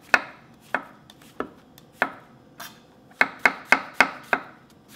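Chef's knife thinly slicing white button mushrooms on a wooden cutting board: about ten sharp knocks of the blade meeting the board, spaced unevenly at first, then a quicker run of five near the end.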